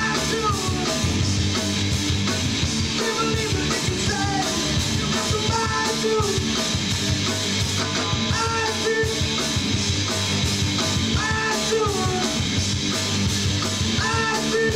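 Live punk rock band playing a song: electric guitar, bass and drums at a steady loud level, with singing.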